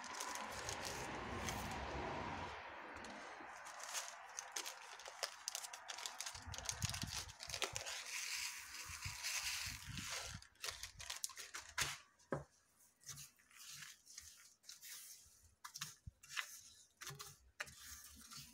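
Small plastic bag of seed beads crinkling and rustling as it is opened and shaken out, followed by many light, scattered clicks and ticks from handling the bag and beads.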